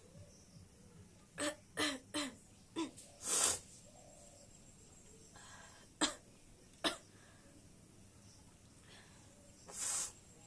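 A woman coughing in separate fits: four quick coughs close together about a second and a half in, then a longer breathy cough, two sharp single coughs midway, and another long breathy cough near the end.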